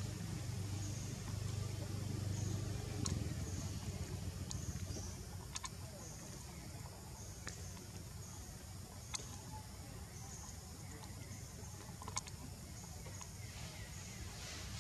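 Forest ambience: a high-pitched insect buzz coming and going in short spells over a low hum that fades after about three seconds, with a handful of sharp clicks scattered through.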